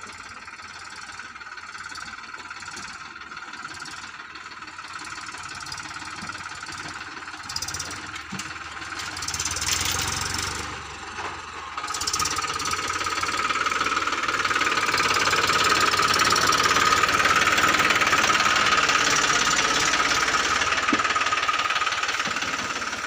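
Eicher 333 tractor's three-cylinder diesel engine running as the tractor pulls a trolley up and passes close by, growing louder and loudest in the second half before easing off near the end.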